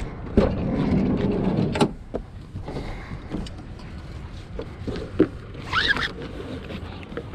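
Handling noise at a car: a scrape of about a second and a half, then scattered clicks and knocks, with a brief high squeak near the end.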